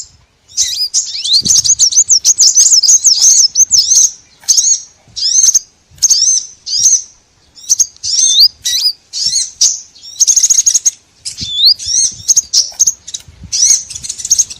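Small songbirds chirping: quick, high twittering notes and short swooping chirps in bursts of about a second with brief pauses, a bird-lure (pikat) recording of small birds.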